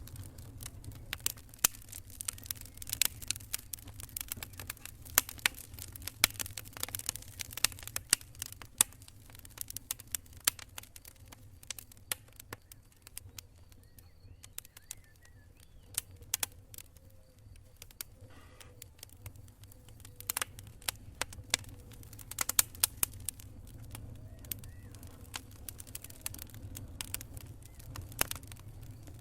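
Wood campfire crackling, with irregular sharp pops and snaps coming thick in some stretches and sparse in others, over a steady low rumble.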